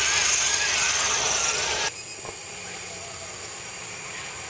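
Electric motor and gear whine of a scale RC crawler truck, rising and falling with the throttle, over the rustle of its tyres on dry leaves. About two seconds in it cuts off suddenly, leaving a much quieter faint hiss.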